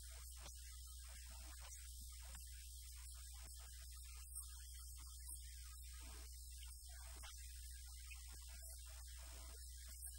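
Steady low electrical mains hum, with faint scattered sounds above it.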